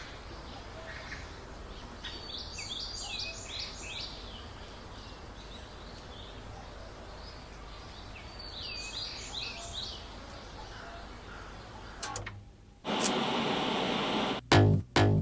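Birds singing over a steady outdoor background hiss, with two short flurries of quick repeated chirping calls. Near the end the ambience cuts out, a loud hiss-like swoosh follows, and music with a heavy beat starts.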